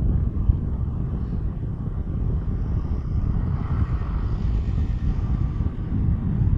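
Steady low rumble of wind buffeting the microphone mixed with road and engine noise from a moving vehicle.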